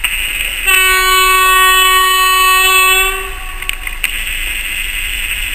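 Freight locomotive horn sounding one long steady blast of about two and a half seconds, starting under a second in, over the steady noise of the approaching trains.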